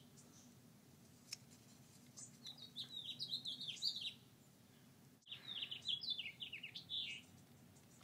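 A small songbird singing: two quick runs of high, falling chirps, each lasting about two seconds, over a steady low hum.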